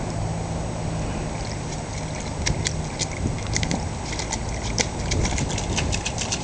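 A terrier pawing and splashing water in a plastic kiddie pool: a quick, irregular patter of small slaps and splashes that grows busier toward the end.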